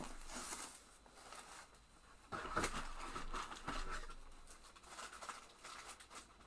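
Light rustling, crinkling and small taps of craft supplies and their packaging being handled, busiest a couple of seconds in.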